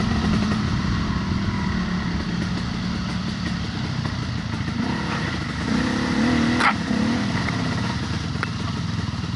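Motorcycle engine running steadily while riding a rough dirt trail, swelling briefly about six seconds in, with a single sharp knock right after.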